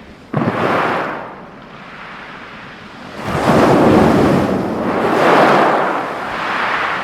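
Waves breaking on a pebble shore. One wave crashes suddenly about a third of a second in and fades within a second. A larger surge of water rushes over the stones from about three seconds in, swells twice, then eases off.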